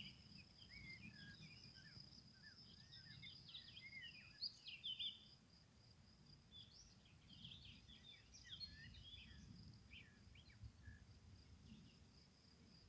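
Faint birds chirping and calling, with a steady high insect trill and a low rumble underneath.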